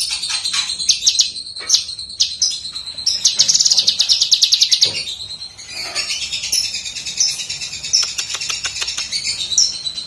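Caged cucak kinoi leafbird singing steadily: a fast, unbroken run of high chirps and rattling trills.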